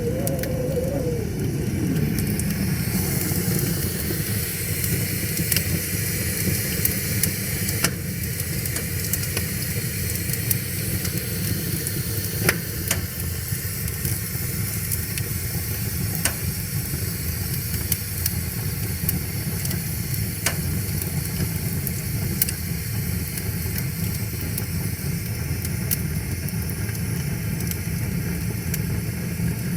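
Wood fire crackling, with sharp pops every few seconds over a steady low rushing of river water. A wavering tone slides down in pitch during the first two seconds.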